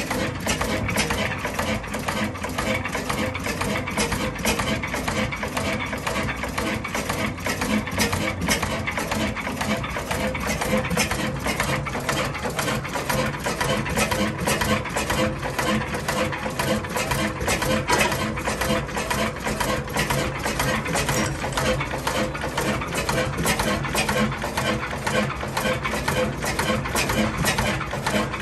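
1919 Hornsby 6 hp stationary engine running steadily, its valve gear and firing making an even, rapid clatter over a low hum.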